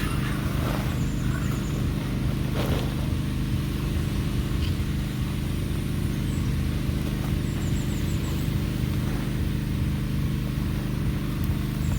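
An engine or motor running steadily at a constant speed, a low drone, with a single sharp knock about two and a half seconds in.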